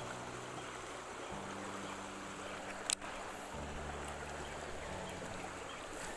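Fast-flowing river water rushing steadily, with one sharp click a little under halfway through.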